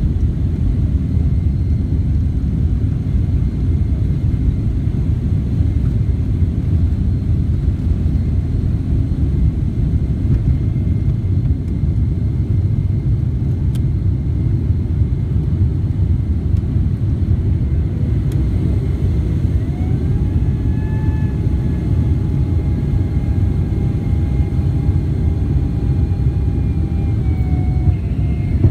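Boeing 767-300ER cabin noise at takeoff power: a loud, steady deep rumble of engines and airflow. About two-thirds of the way in, a whine rises and then holds steady, dipping near the end.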